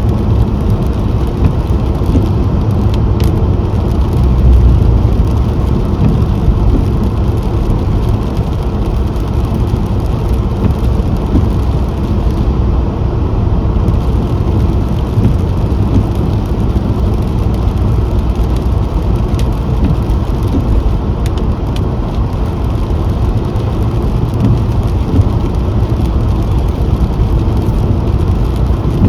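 A car driving along at steady speed: a continuous low rumble of engine and tyre road noise, with no marked changes.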